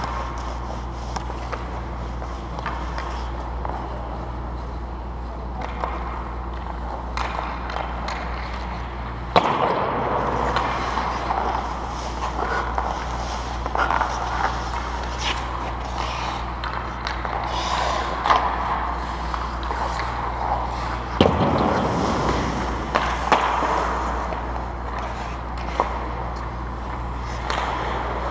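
Ice-hockey skates scraping and carving on rink ice, with sharp clacks of sticks and pucks, over a steady low hum. Two louder scraping rushes come about a third of the way in and about three-quarters through.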